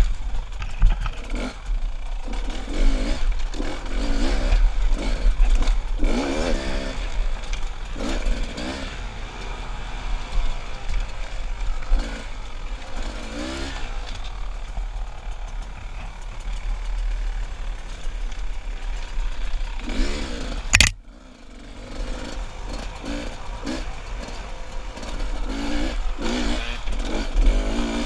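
Enduro dirt bike engine revving up and dropping back over and over as it is ridden over rocky single track, with clatter from the bike and a steady low rumble of wind on the helmet camera. About three quarters of the way through there is a single sharp click, and the sound is briefly quieter.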